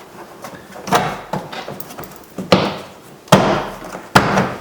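Sharp knocks and thumps of a Volkswagen Jetta's interior door panel being pushed and knocked into place against the door: about four hits, the later ones louder.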